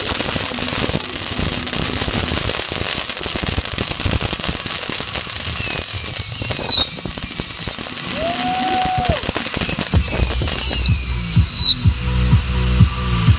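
Fireworks going off: a dense run of crackling firecracker pops, with two bursts of whistling fireworks whose shrill whistles fall in pitch, about five and ten seconds in. A low steady hum comes in during the last few seconds.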